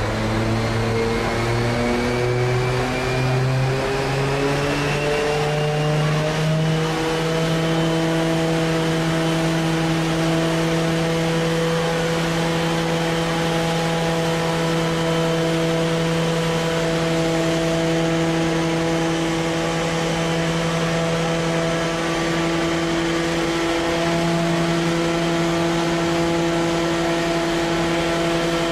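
Fire truck engine running at high revs to drive the pump for its roof water cannon. Its pitch rises over the first several seconds, then holds steady.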